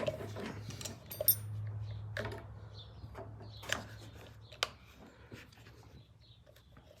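Scattered small clicks and rubbing as the reassembled 1983 Honda XR500 throttle assembly and its rubber boot are handled, with a few sharper clicks, over a steady low hum.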